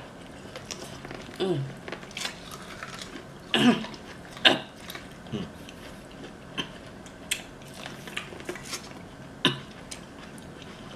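Close-miked eating sounds: chewing and mouth clicks in a string of short, separate noises, the loudest pair about four seconds in.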